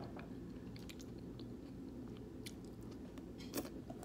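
A person chewing food close to the microphone, with scattered small mouth clicks and a sharper click a little after three and a half seconds and again at the end.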